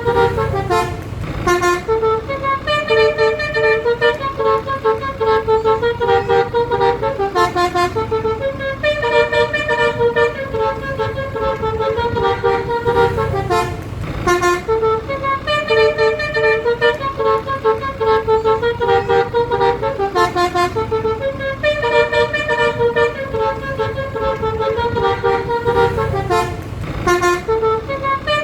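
A bus's basuri musical horn playing a tune of short stepped notes, the same phrase repeated again and again, over the low rumble of the bus's engine.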